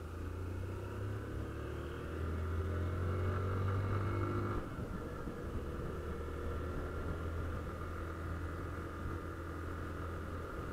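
Honda CG 160 Fan's single-cylinder four-stroke engine pulling as the motorcycle rides along, its pitch rising from about two seconds in, then dropping suddenly about four and a half seconds in and settling into a steady cruise.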